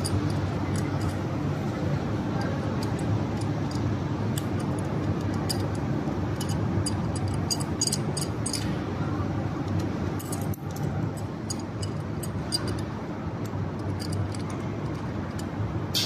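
Light metallic clinks and scrapes of an adjustable wrench on a scooter's front axle nut, over steady background music.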